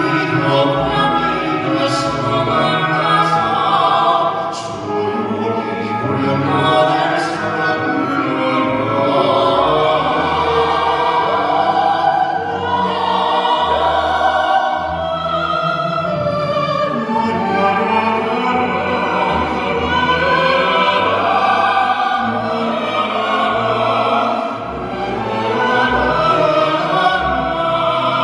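Male voices singing in an operatic crossover style over orchestral accompaniment, performed live.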